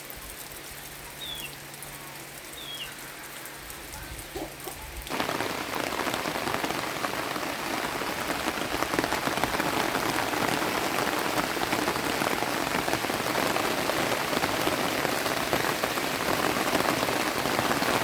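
Rain falling on the ground and surroundings. At first it is fairly light, with a few short bird chirps. About five seconds in it turns abruptly much louder, into a dense, steady downpour.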